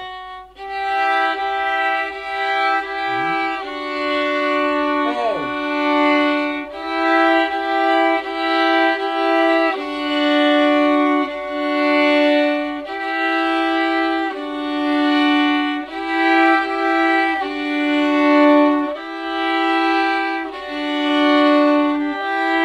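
Violins playing a simple beginner's tune, long bowed notes on the D string alternating between two pitches in a steady pulse, by the end with two violins together. Brief sliding pitch sweeps about three and five seconds in.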